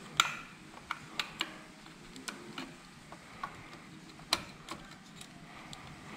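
Irregular light metallic clicks and taps as the kickstart gear and small steel parts are handled and seated by hand in the open clutch side of a motorcycle engine. The sharpest click comes just after the start, another about four seconds in.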